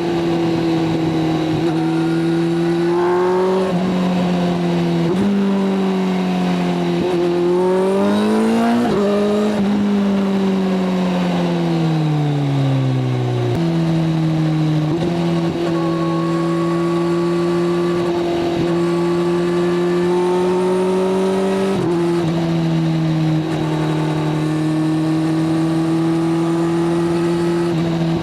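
Kawasaki inline-four sport motorcycle engine running at a steady cruise. About eight seconds in it rises in pitch in short steps. It then falls steadily for a few seconds and jumps back up near the middle, before settling into steady running again.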